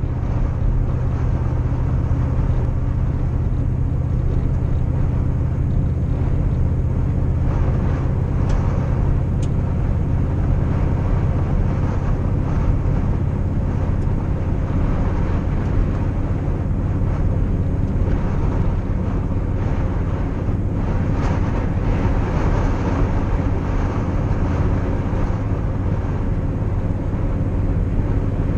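Vehicle driving on a gravel road, heard from inside the cab: a steady low engine drone with tyre and road noise.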